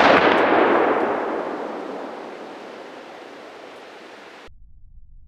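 The rolling echo of a .308 AR-10 rifle shot reverberating off the surrounding mountains, fading steadily over about four seconds and then cutting off suddenly.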